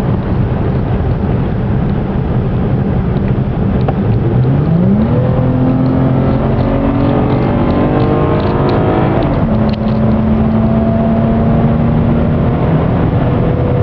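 2013 Dodge Challenger's engine heard from inside the cabin while lapping a track. From about four seconds in it pulls harder, its pitch climbing for several seconds, then drops near ten seconds in and holds steady.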